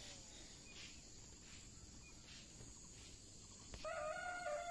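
Faint outdoor quiet, then about four seconds in a distant rooster crows: one drawn-out call that falls slowly in pitch.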